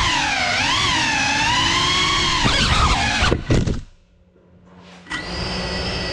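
GEPRC Cinelog35 FPV cinewhoop drone, its motors and ducted propellers whining with pitch that rises and falls with the throttle. About three seconds in it crashes with a few quick knocks and the motors cut out, leaving it nearly silent for about a second. Then the motors spin up again and run at a steady idle whine.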